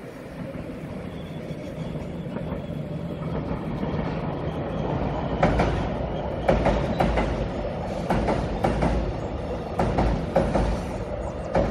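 The Donghae Santa Train passing on a steel girder railway bridge. A steady rumble builds as it approaches, and from about halfway through its wheels knock over the rail joints in repeated clacks, often in close pairs as each bogie goes over.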